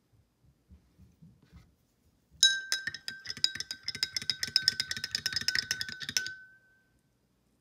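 Metal spoon stirring liquid in a drinking glass, clinking against the sides several times a second for about four seconds, with the glass ringing on briefly after the stirring stops. A few soft knocks come before the stirring starts.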